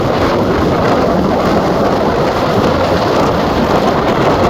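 Strong wind buffeting the microphone: a loud, steady, rumbling rush with no letup.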